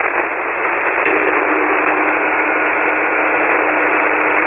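Single-sideband ham radio transmission keyed with no speech, received over the air: a steady hiss limited to the voice band that rises in level about a second in, with faint steady tones after that. This is the transmitting station's speech compressor bringing up the room's background noise ('suck up'), which the sending operator thinks is his mic picking up an air conditioner running in the room.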